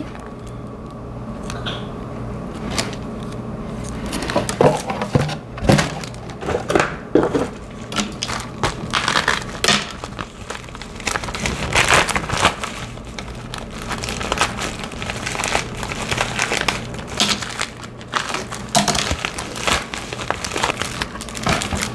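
Plastic packaging crinkling and rustling as it is handled: clear plastic sleeves of nail stickers and a padded bubble-mailer envelope, in irregular rustles throughout.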